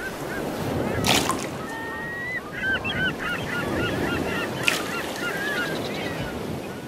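A flock of birds making many short, overlapping calls over a steady rushing noise, with two brief sharp noises, one about a second in and one near five seconds.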